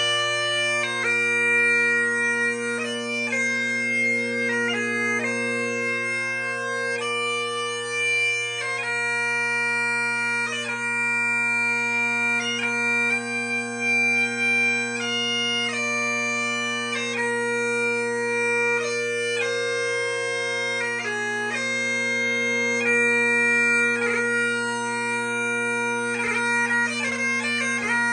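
3D-printed Highland bagpipes being played: steady drones hold a constant low tone while the chanter plays a tune that steps from note to note, with quicker note changes near the end.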